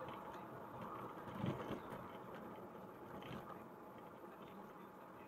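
Faint, steady road noise from a car driving on a city street, with a brief thump about a second and a half in.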